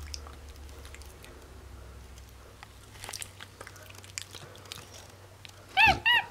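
Capuchin monkey chewing and smacking its lips and tongue on a mouthful of banana, with small wet clicks. Near the end it gives a loud, high chirping call, each note rising and falling in pitch.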